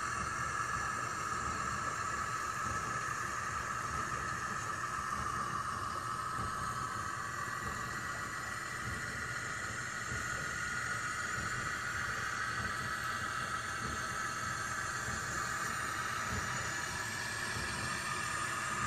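An old tractor engine running steadily at an even speed, with a constant whine and hiss over a rough low rumble.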